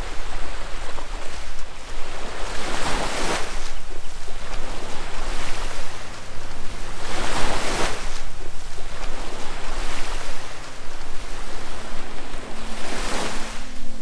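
Waves breaking on a sandy beach: a constant wash of surf with three louder breakers, about four to five seconds apart.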